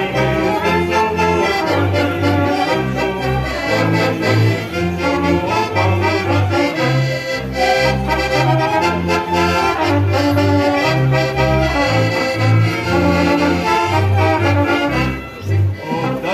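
Live folk band playing: fiddle and brass carry the melody over a double bass plucking a steady beat.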